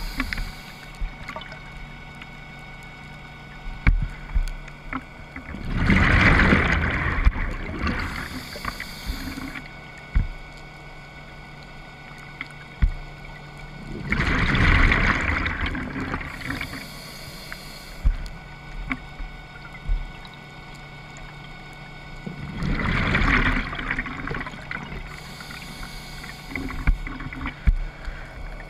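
Scuba diver breathing through a regulator underwater: three bursts of exhaled bubbles, about every eight seconds, each bubbling for a second or two, with a fainter hiss of inhalation through the regulator between them.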